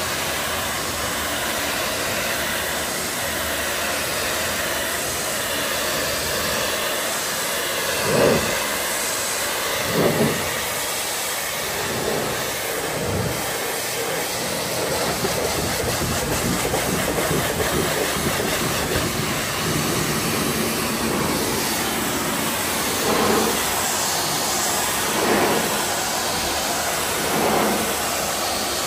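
High-pressure washer jet hissing steadily as it sprays the truck cab's panels, rinsing off the snow foam, with a few brief louder swells.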